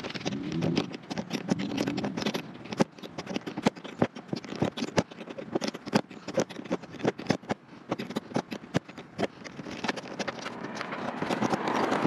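Quick, irregular scraping and clicking of a metal hand tool against a bolt and the vent flange as dried construction glue is cleaned off the bolt threads.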